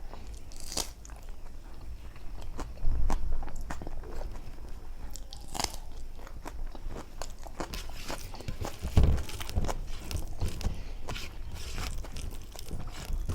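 Close-up eating sounds: chewing with wet mouth clicks and smacks, irregular and several a second at times, from someone eating mashed vegetable bharta and dal. Two louder dull bumps come a few seconds in and again past the middle.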